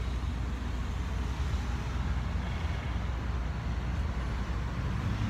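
Steady low rumble of a road vehicle, engine and road noise with an even hiss above it.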